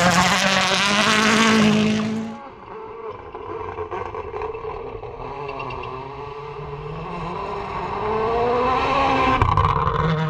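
Rally car passing at full throttle, loud for about two seconds and then dropping away sharply. Its engine note is heard more faintly after that, rising and falling through the revs and gear changes, and it grows louder again near the end.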